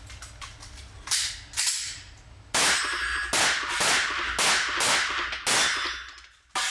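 A handgun fires a rapid string of about nine shots, roughly half a second apart, the first two a little quieter. The reports ring on between shots in the indoor range.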